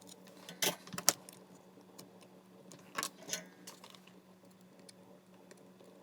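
A few sharp metallic clinks and rattles of small hard parts being handled, about four in the first three and a half seconds, over a steady low hum.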